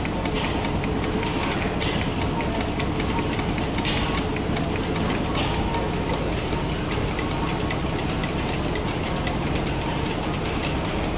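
Small stationary steam engines running steadily: a continuous mechanical clatter made of quick, even ticks.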